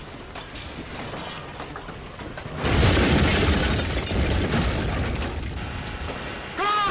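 Car crashing down in a stunt rollover: light clattering, then a sudden heavy crash about two and a half seconds in, with crunching that carries on for a couple of seconds before dying down. A voice calls out at the very end.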